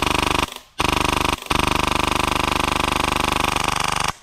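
Airsoft rifle firing full auto, a fast, even rattle of BBs striking a clear plastic riot shield. There are three bursts: two short ones in the first second and a half, then a long one that cuts off sharply near the end.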